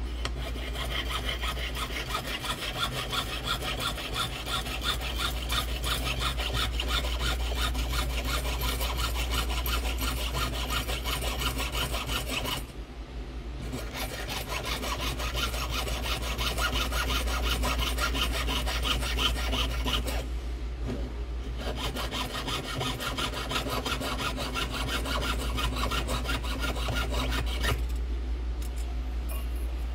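Jeweler's saw with a fine blade cutting 14-gauge copper sheet on a wooden bench pin: quick, even back-and-forth strokes. The sawing stops briefly about 13 seconds in, again about 21 seconds in, and near the end.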